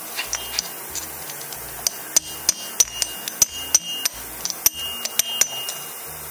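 Ball-peen hammer striking a red-hot steel strip to shape it around a round steel bar held in a vise: a run of irregular, sharp metal-on-metal taps, several leaving a brief metallic ring.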